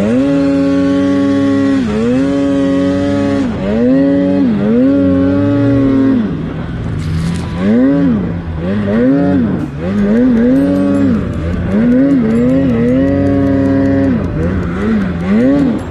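Snowmobile engine revving hard as the sled ploughs through deep powder, its pitch held high for a couple of seconds, then dipping and climbing again over and over as the throttle is worked, about once a second in the second half.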